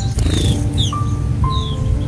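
Background music: soft piano notes with a few short bird chirps over it.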